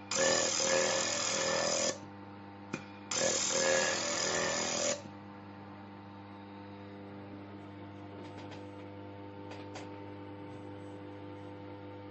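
Desktop laser welding machine: two bursts of loud hissing, crackling noise of about two seconds each, a short click between them, over a steady machine hum. After the second burst only the hum remains, with a few faint clicks.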